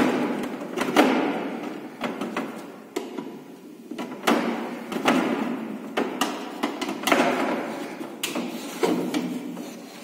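Screwdriver working the screws out of the plastic air-flow cover inside a frost-free refrigerator's freezer compartment. About one sharp click a second, each followed by a short scraping rasp.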